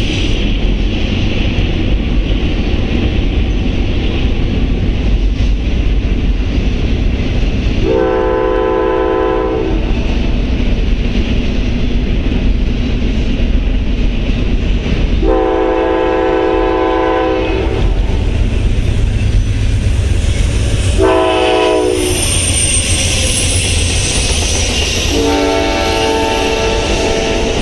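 Passenger train's horn blowing long, long, short, long, the standard signal for a grade crossing, as the Amtrak train approaches with its silver bilevel cars. Under it runs the steady rumble of a double-stack freight train crossing the bridge overhead.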